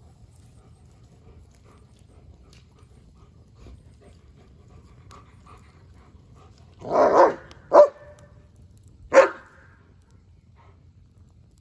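German Shepherd barking three times, about seven seconds in; the first bark is longer than the two short ones that follow.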